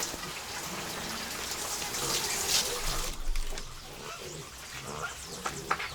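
Running water splashing, loudest about two to three seconds in.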